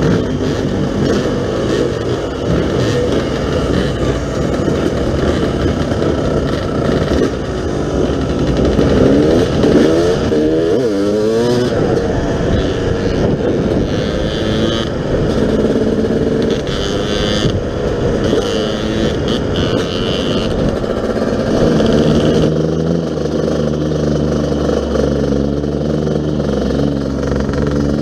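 Yamaha YZ250 two-stroke dirt bike engine running while riding, its pitch rising and falling as the throttle is worked, with quick revs around ten seconds in and a steadier note over the last few seconds.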